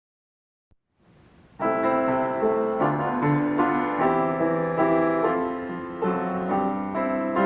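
Piano music starting about a second and a half in after a moment of silence: a slow piece of sustained chords and melody notes.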